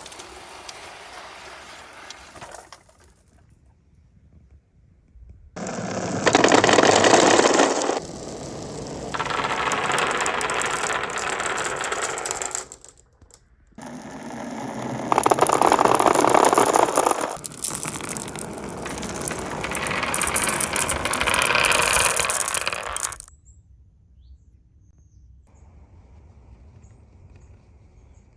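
Many marbles rolling and clattering down a homemade marble run track in several dense stretches of rattling that start and stop abruptly, loudest around six to eight seconds in and again around sixteen seconds in. Near the end only a faint steady high tone remains.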